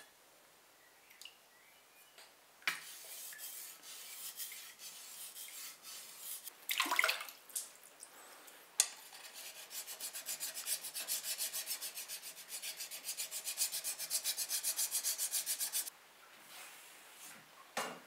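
Steel sabre blade being rubbed by hand with an abrasive in quick back-and-forth strokes, with one louder scrape about seven seconds in, then an even rhythm of about four strokes a second that stops abruptly about two seconds before the end.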